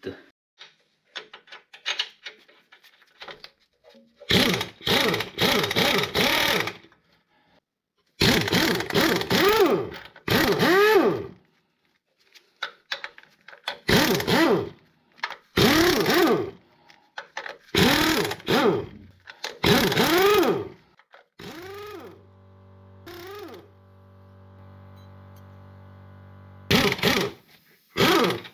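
Pneumatic impact wrench loosening the flywheel bolts, in repeated bursts of one to three seconds, each spinning up and down in pitch. A few light clicks come before the first burst, and a steady hum runs for several seconds near the end.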